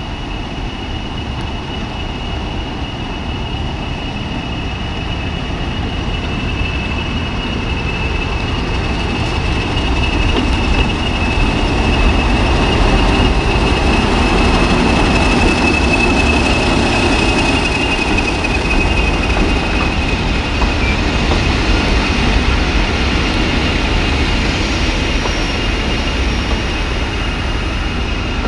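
English Electric Class 40 diesel locomotive D345, with its 16-cylinder engine, hauling coaches past, growing louder as it draws alongside about halfway through and staying loud as it moves away. A steady high whistle from its turbochargers, the sound that gives the class its nickname 'Whistlers', runs over the engine throughout.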